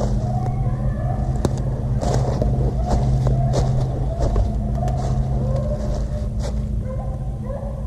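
Beagles baying on a rabbit's track: drawn-out, sliding hound calls overlapping one another, over a steady low drone, with scattered snaps and crackles of brush.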